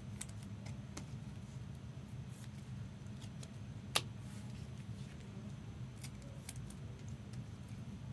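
Faint clicks and light rustling of trading cards being handled in clear plastic holders, with one sharper click about four seconds in, over a steady low hum.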